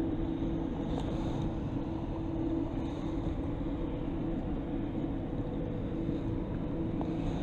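Steady low outdoor rumble of wind and distant industrial machinery, carrying a faint unchanging hum, while a baitcasting reel is wound in.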